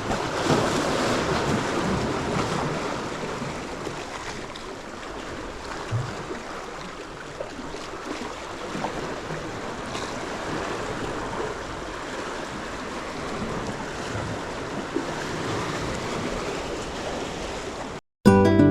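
Sea waves washing onto the shore, a steady rushing that swells in the first few seconds. It cuts off near the end, and acoustic guitar music starts.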